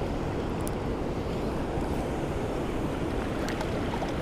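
Steady rushing of water pouring over a spillway and churning below it, with wind buffeting the microphone.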